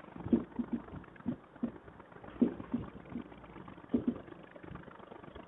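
A marker writing on a whiteboard: short, faint, irregular strokes and taps as words are written.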